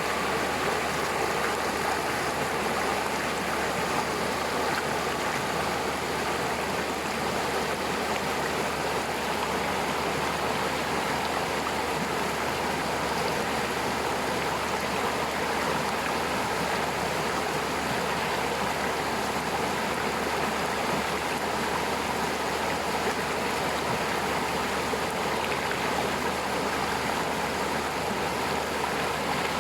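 Waterfall: water falling and rushing in a steady, unbroken flow.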